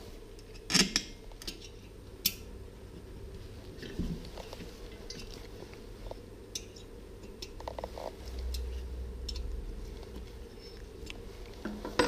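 Parts of a diesel heater being handled and fitted back together during reassembly: scattered light clicks and clinks, with a few sharper knocks, the loudest about a second in.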